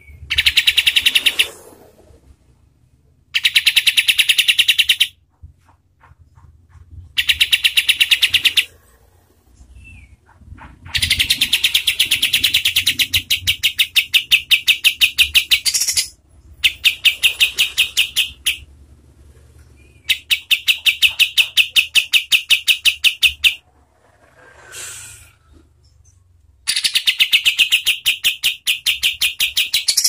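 Olive-winged bulbul (kapas tembak) singing its rapid stuttering 'tembak' rattle in repeated bursts, seven in all, each lasting from about a second and a half to five seconds, with short pauses between.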